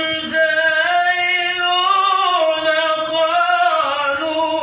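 A man reciting the Quran in a melodic tajweed style, drawing out long ornamented notes that glide slowly up and down in pitch. The voice is dry, with no added echo or effects. About halfway through he carries the word "al-jahiluna" on a held note.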